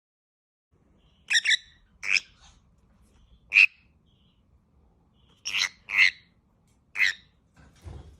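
A parrot giving short, sharp calls, about seven in all, starting about a second in, some in quick pairs.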